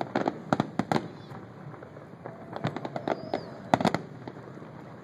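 Fireworks finale: aerial shells bursting in rapid clusters of sharp bangs, one volley in the first second, another about two and a half seconds in and a last near four seconds, with a brief whistle between them.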